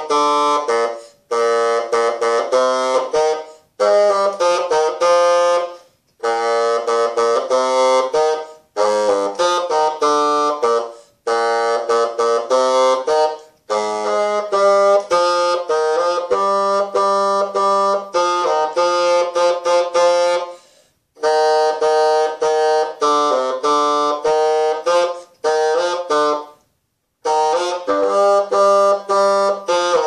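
Solo bassoon playing a melody, note by note, in short phrases with brief silent pauses between them.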